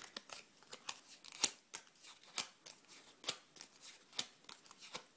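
A bone folder drawn across punched paper blossom petals to curl them. It makes a series of short, sharp scrapes and paper crackles at an uneven pace, a few a second.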